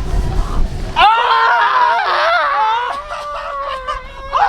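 A high-pitched shrieking voice, held and wavering for about three and a half seconds, starting about a second in.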